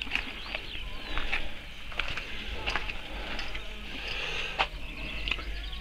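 Scattered clicks and knocks over a low steady hum, with a few faint high chirps near the start.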